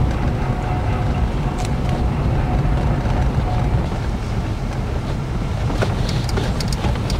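Steady low rumble of wind buffeting the microphone while moving, with a few short clicks near the end.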